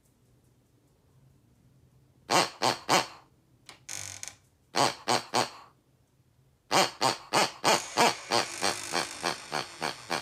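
Pink rubber pig squeaky toy squeezed by hand. It gives three squeaks, a short airy hiss, three more squeaks, and then a quick run of about a dozen squeaks, roughly three a second.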